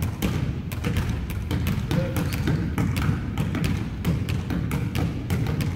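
Basketball dribbled on a hardwood gym floor: a quick, irregular run of bounces, about four a second.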